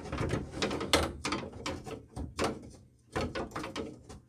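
Tools and parts being handled and rummaged through: a string of irregular knocks, clicks and clatters, with a short lull a little past the middle.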